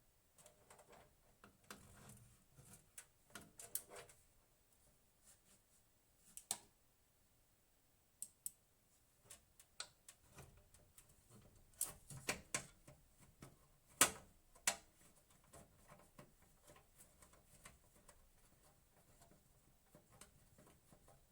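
Scattered light clicks and taps of small hard objects, in short clusters, with the sharpest click about fourteen seconds in and fewer, fainter ones over the last few seconds.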